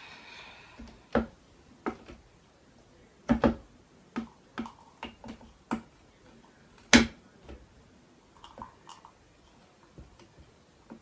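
Irregular sharp clicks and knocks as the tap of a drink dispenser is worked by hand and a mug bumps against it, the loudest about seven seconds in. Nothing pours: the thick, sludgy chocolate drink is not coming out of the tap.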